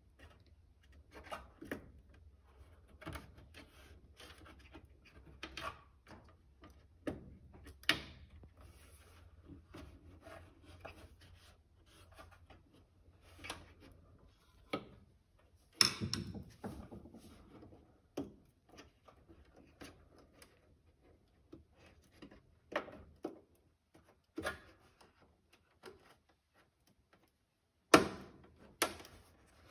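Hands plugging wire-harness connectors onto an electric range's clock control board: scattered plastic clicks and knocks with wire rustling, the sharpest knocks about sixteen seconds in and near the end.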